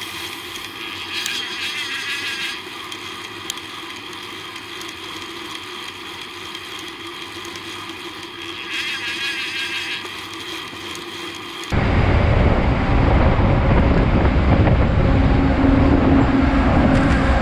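Road and traffic noise picked up by a bicycle-mounted camera. About two-thirds through it jumps abruptly to much louder wind and road noise on the microphone, with a container truck running close alongside and a low engine hum near the end.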